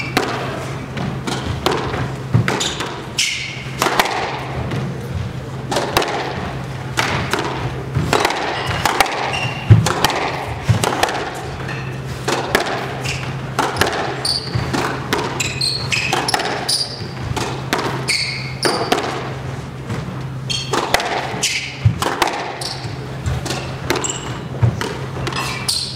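Squash rally: the ball repeatedly smacks off rackets and the walls at an irregular pace, with sneakers squeaking on the hardwood court floor. A steady low hum runs underneath.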